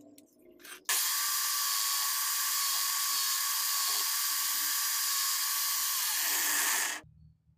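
Makita 9553B angle grinder armature spun fast in a chuck: a steady high-pitched whine with a hiss, with a metal strip held against the spinning armature. It starts suddenly about a second in and stops near the end.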